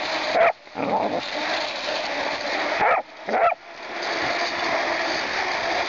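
Labrador puppy barking and yipping a few times over a steady rushing noise.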